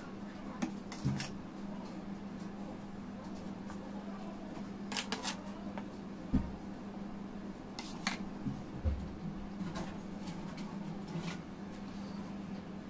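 Scattered light clicks and taps of a spatula and cardboard cake board being handled and turned while cream frosting is smoothed onto a cake, over a steady low hum.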